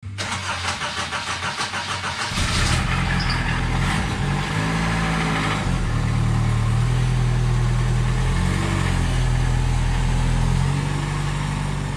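Datsun 720 pickup's engine cranked by the starter at about four beats a second for a couple of seconds, then catching and running at low revs, its pitch wavering briefly before settling as the truck creeps forward.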